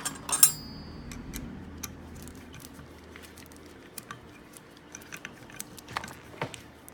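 Light metal clinks and taps of small parts and bolts being handled on a Bostitch MIII pneumatic flooring stapler during reassembly, with one sharper ringing clink about half a second in and scattered soft ticks after.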